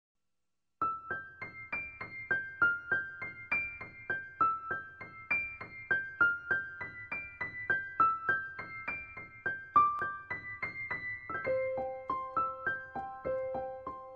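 Background piano music: a gentle melody of single notes, about three a second, starting just under a second in, with lower held notes joining near the end.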